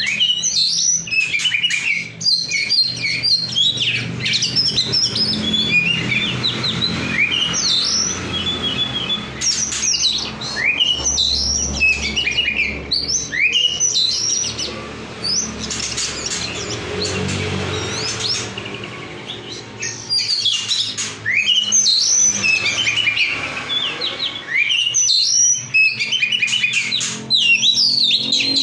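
Oriental magpie-robin (kacer) singing non-stop: a fast, varied song of sharp rising whistles, chirps and trills, with a low hum underneath.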